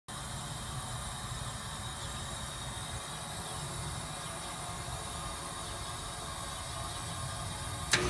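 Heat pump outdoor unit giving a steady low hum, with a sharp click near the end. The unit is short-cycling, switching on and off three times in two minutes, a fault later traced to a bad controller board.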